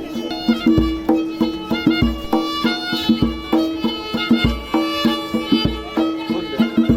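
Instrumental music: a melody of sustained notes over a steady deep beat that falls about every second and a bit.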